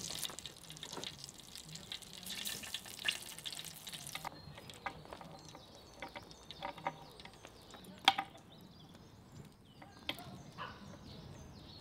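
Wood fire hissing and crackling in the fire pit for the first few seconds. Then scattered clicks and knocks as a metal hanging chain and the hot leg of lamb are handled on a wooden chopping board, with one sharp clack about eight seconds in.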